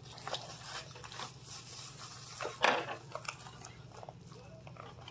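Plastic bubble wrap crinkling and rustling as it is handled, in short irregular bursts with a louder crackle about two and a half seconds in.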